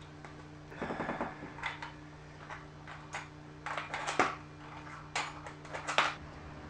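Irregular short clicks and knocks: a quick cluster of them about a second in, then single ones every half second or so.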